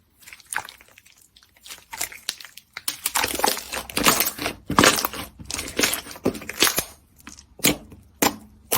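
Slime being squeezed and pressed by hand, giving an irregular run of crisp crackles and squelching pops.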